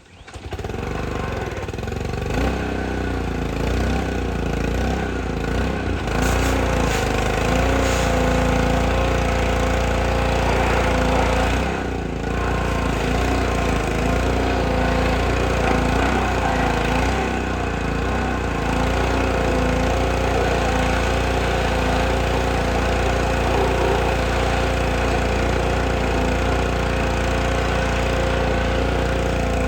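Honda GCV190 single-cylinder engine on a Craftsman 3200 psi pressure washer starting and running. Its pitch wavers up and down for the first twenty seconds or so, with a brief dip about twelve seconds in, then holds steadier.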